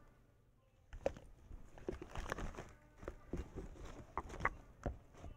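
Irregular clicks, taps and rustling as makeup items are handled and rummaged through, starting about a second in.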